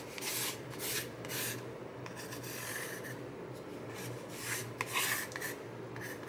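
Pencil drawing lines on corrugated cardboard: a series of short, scratchy strokes at an irregular pace, over a faint steady low hum.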